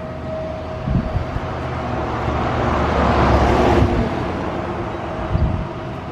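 A car drives past, its tyre and engine noise swelling to a peak about three and a half seconds in and then fading. Under it a faint, steady outdoor warning siren tone sounds in the distance.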